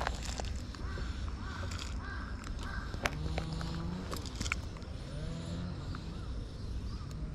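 A crow cawing four times in quick succession, with a few sharp clicks close by and a steady low outdoor rumble.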